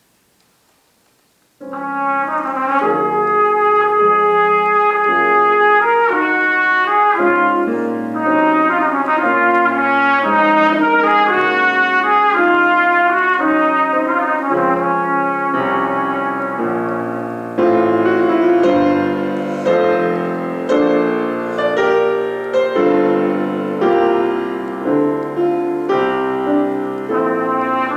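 Trumpet playing a melody with grand piano accompaniment, entering together after a short silent rest about a second and a half in.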